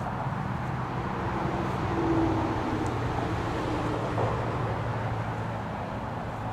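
A distant engine running over steady outdoor background noise, loudest about two seconds in.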